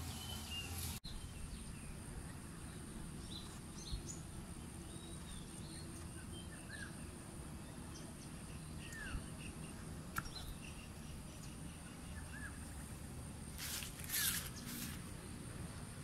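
Outdoor ambience: birds chirping now and then over a steady high-pitched buzz and a low background rumble, with a few faint clicks.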